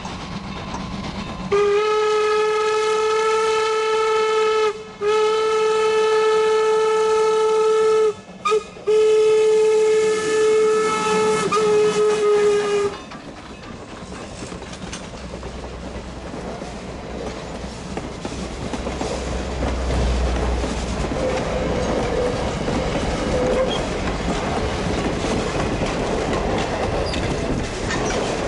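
Norfolk & Western 475's steam whistle blowing the grade-crossing signal: long, long, short, long, on one steady pitch. Then the 4-8-0 steam locomotive and its passenger coaches pass close by, with a low rumble and wheels clacking over the rail joints.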